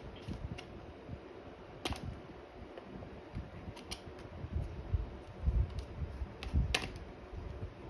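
Hands handling and picking at a plastic packaging tray holding earbuds: scattered light clicks and taps over low handling bumps, with a sharper click about two seconds in and another near the end.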